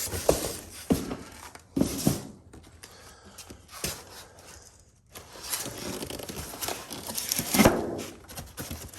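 Packaging around a new motorcycle exhaust being worked open by hand: irregular rustling, scraping and tearing, with a few sharp knocks.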